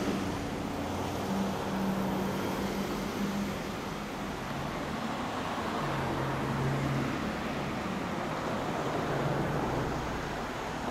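Motor vehicle engines running, with a low engine drone that comes and goes and changes pitch now and then over a steady rumble.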